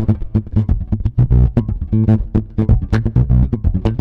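Ibanez SR Mezzo 200 four-string electric bass played in a fast run of plucked notes, each with a sharp, bright attack over a deep low end, during a pickup sound check.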